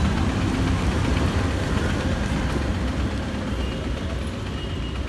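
Street traffic: a steady low rumble of passing vehicle engines.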